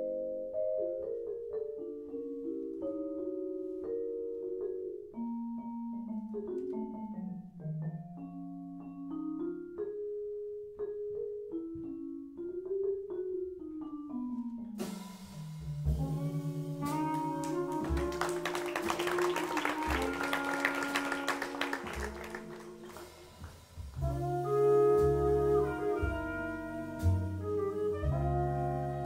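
Jazz vibraphone played with mallets in a run of single notes; about halfway through, the full band comes in with bass, drums with cymbals and wind instruments, getting louder again near the end with the clarinet.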